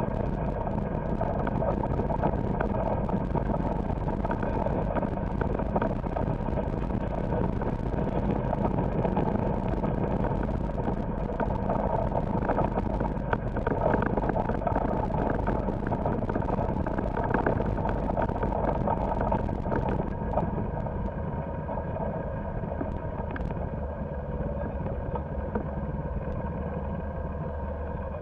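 Golf cart driving: its motor running steadily while the tyres crunch over a dirt and gravel road. About twenty seconds in it rolls onto grass and the crackle of the gravel drops away.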